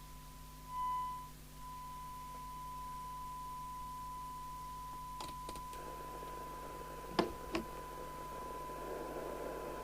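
Steady 1 kHz test tone, the usual test-signal modulation heard on receive during CB receiver alignment, louder for a moment about a second in. A hiss of receiver noise rises under the tone from about six seconds in, and a few sharp clicks come around five and seven seconds.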